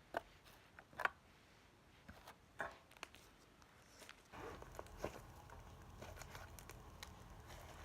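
Slime being handled: scattered sharp pops and clicks at irregular times, one with a short squelchy ring. About four seconds in, a low steady rumble joins.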